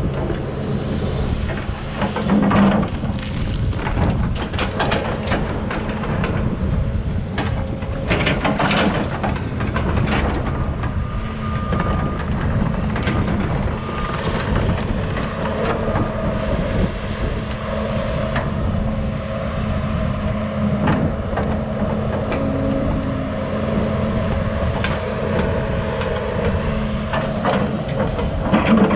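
Kobelco 210 excavator's diesel engine running steadily under load, with a brief high whine twice. Over it come repeated sharp cracks and knocks, thickest around eight to ten seconds in.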